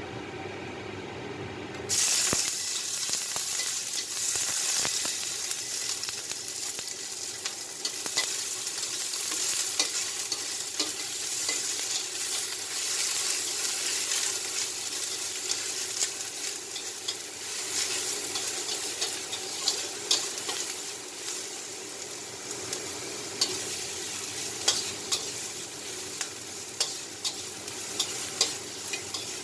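Chopped onion and garlic dropping into hot oil in a steel wok about two seconds in, then sizzling steadily while a metal spatula stirs and scrapes the pan, with scattered clicks of the spatula against the wok.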